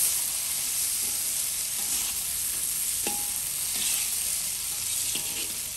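Chopped walnuts sizzling as they fry in ghee in a large wok, with a steady hiss. A perforated metal skimmer stirs them, scraping and clinking briefly against the pan a few times.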